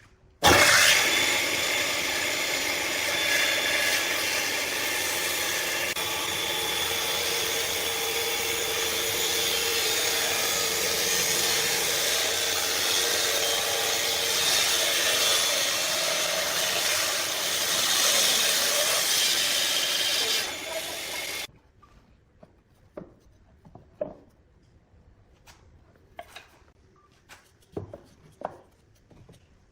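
Homemade table saw running and cutting wood: a loud steady whine that starts about half a second in and stops abruptly about two-thirds of the way through, followed by a few faint knocks.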